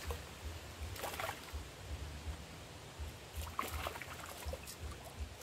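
A hooked piau thrashing and splashing at the river surface as it is pulled in on a pole and line: a burst of splashing about a second in, and another, longer one after about three and a half seconds.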